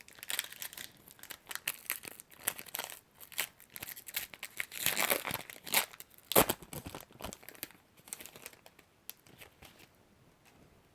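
A foil Pokémon booster pack wrapper being torn open and crinkled, a run of irregular crackles. The loudest crackle comes about six and a half seconds in, and the crackling dies down after about eight seconds.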